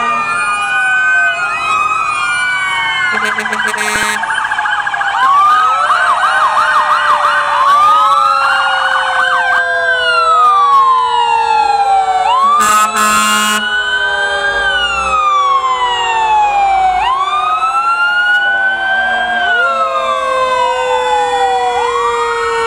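Several fire truck sirens sounding at once, overlapping slow rising-and-falling wails and faster yelps, with one long tone slowly falling in pitch underneath. Two brief horn blasts cut in about three and twelve seconds in.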